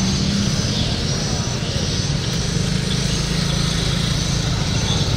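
A small engine running steadily: a low drone over a constant hiss, its pitch dropping slightly about a second and a half in.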